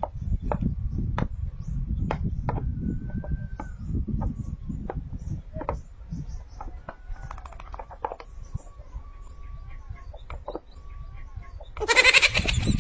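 Scattered light clicks and low rustling, then, about a second before the end, a loud wavering bleat-like call.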